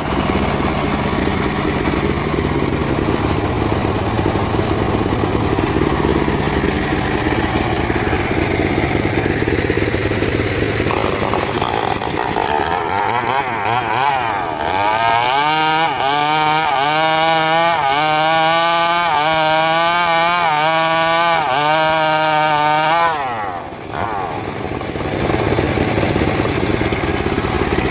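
Engine-driven wood saw running steadily. About halfway through, a loud pitched whine rises and wavers in an even rhythm for several seconds as the saw works, then drops off suddenly and the steady running returns.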